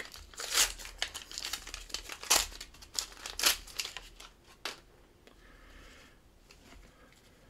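Foil wrapper of a 1989 Upper Deck baseball card pack being torn open and crinkled by hand: a quick run of sharp crackles and rips that stops about four and a half seconds in.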